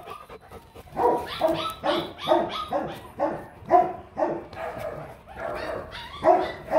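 Rottweiler barking repeatedly, a steady string of short barks about two to three a second, starting about a second in.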